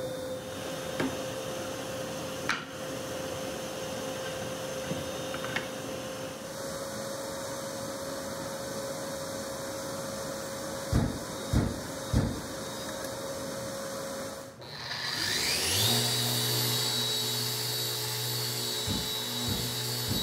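A shop dust extractor runs steadily, hooked to a pocket-hole jig while holes are drilled, with a few clicks. Around the middle a cordless impact driver gives three short bursts driving pocket screws. About 15 s in, a Bosch random orbital sander starts with a rising whine and runs steadily.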